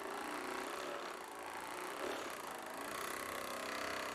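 Handheld percussion massage gun running steadily, its motor buzzing as the head is pressed into the muscles of the lower back.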